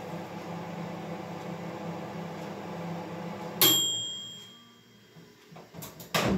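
Microwave oven running with a steady low hum, then its timer rings once about three and a half seconds in as the heating cycle ends, and the hum stops. A few sharp clicks near the end are the door being released and opened.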